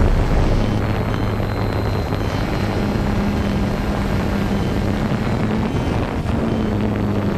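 Small camera drone's motors and propellers humming steadily, heard from the drone itself, with a steady low drone and its overtone and a rushing noise over it.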